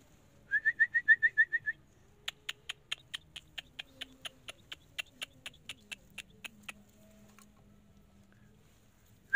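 A bird calling a quick run of about eight short, rising whistled notes. It is followed by a long, even series of sharp ticks, about five a second, lasting several seconds.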